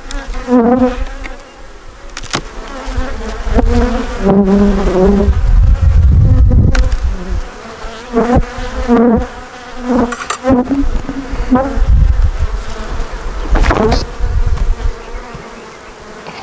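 Honeybees buzzing close over an open hive, their wing tones rising and falling as single bees fly past, with a few knocks.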